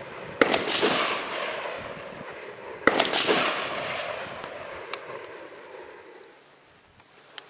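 Two shots from a Nemesis Arms Windrunner .308 rifle, about two and a half seconds apart, each followed by a long rolling echo that slowly dies away. A few faint clicks come near the end.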